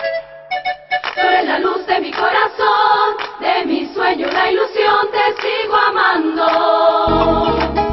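Music with a choir singing, and a deep beat coming in near the end.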